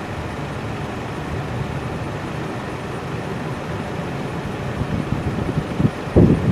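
Steady jet roar of an Airbus A380's four Rolls-Royce Trent 900 engines on landing approach, slowly growing louder as it nears. Near the end, low gusts of wind buffet the microphone.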